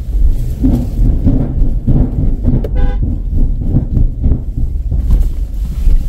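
Ford Endeavour SUV driving slowly over a steel bridge deck and rough ground, heard from inside the cabin as a steady low rumble with many small knocks. A single short horn toot sounds about three seconds in.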